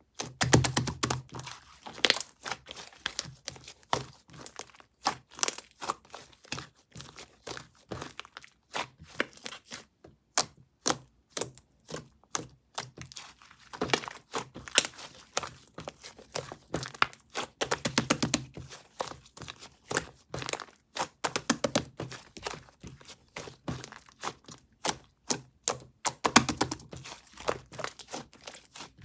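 Slime being played with by hand: an irregular, dense run of sharp clicks and pops, with a few soft thuds.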